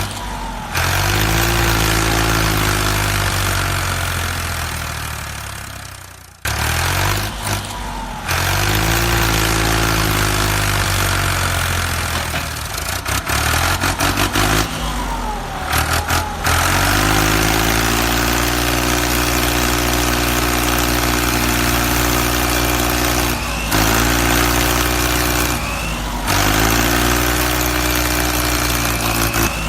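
Truck engine sound of a miniature model truck, revving up and then running steadily. It breaks off and starts again several times at abrupt cuts, about six seconds in and again later on.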